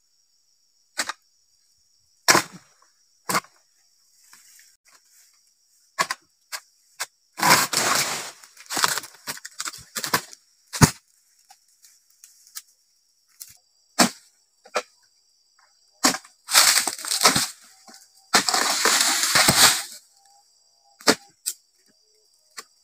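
Sharp chopping strikes of a dodos, a pole-mounted harvesting chisel, cutting into oil palm frond bases, spaced a second or two apart. Three longer rustling crashes come in the middle and near the end, as cut fronds come down. A steady high chorus of crickets runs underneath.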